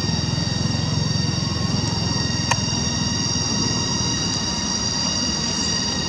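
Cicadas calling in a steady chorus of several unbroken high tones, over a low rumble, with a single sharp click about two and a half seconds in.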